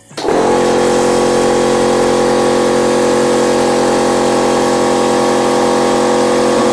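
Air compressor cutting in suddenly and running at a steady pitch, its motor drone holding level.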